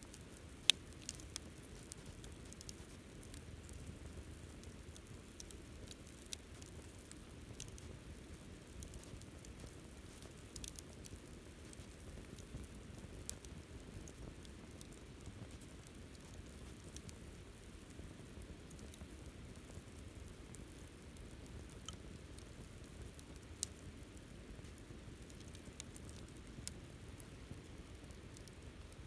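Wood campfire burning: a low steady rush of flame with scattered sharp crackles and pops, the loudest just under a second in and another late on.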